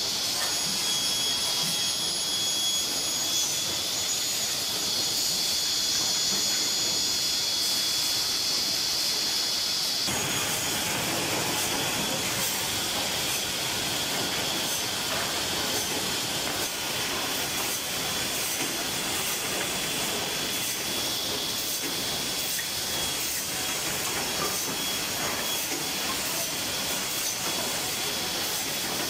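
Woodmaster WM-500X automatic high-speed cross-cut saw running as it cuts wooden strips: a steady hiss with a high whine. The sound changes abruptly about ten seconds in, the bright high whine dropping away and a broader machine noise with faint ticks taking over.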